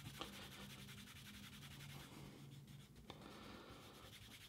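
Faint rubbing of a cloth along the edge of a leather case, buffing in edge burnishing gum to finish the edge, with a couple of light ticks.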